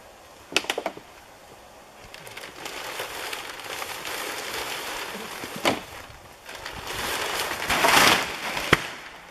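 Black plastic sheeting crinkling and rustling as it is pulled off a wooden pole frame, with poles knocking and cracking. A quick run of sharp knocks comes just after the start. The loudest rustle comes near the end as the sheeting slides to the ground, followed by one sharp crack.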